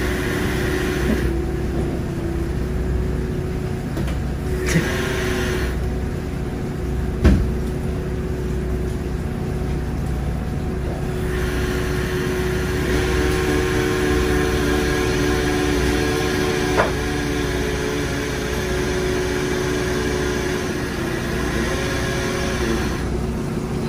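Steady hum of running machinery, with a constant low drone and a held tone, stretches of added hiss, and a few sharp clicks or knocks.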